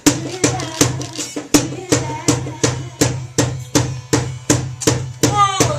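Live R&B band playing an instrumental groove: drums strike a steady beat of about three strokes a second over a bass line.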